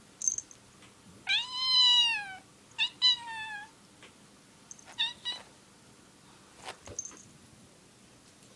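Domestic cat meowing in protest: a long, drawn-out call about a second in, another around three seconds, then two short meows around five seconds.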